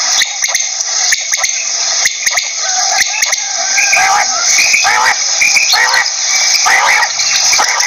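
Quail calling: repeated short notes that rise and fall, coming in runs over a steady hiss.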